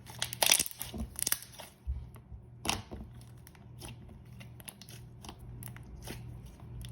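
Thick slime being squished and pressed by hand, making a run of sticky clicks and small pops. The clicks are dense and loudest in the first two seconds, then come sparser and quieter.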